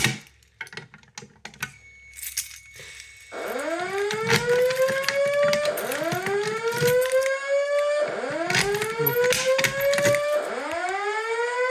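Simplex voice-evacuation fire alarm speakers sounding the whoop evacuation tone: a slow rising sweep repeated four times, about every two and a half seconds, starting about three seconds in. Before it, a few clicks and rattles as the system is set off.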